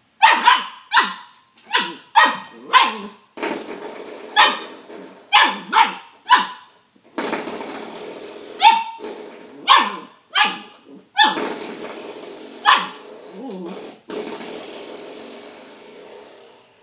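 A young puppy barking over and over, about fifteen short, sharp, high barks in quick bunches, at a spring doorstop.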